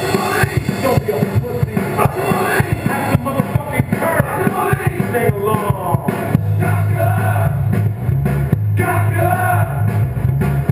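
Loud heavy rock music playing, with fast pounding drums and shouted vocals. About six seconds in, the drums ease back under a held, bass-heavy riff.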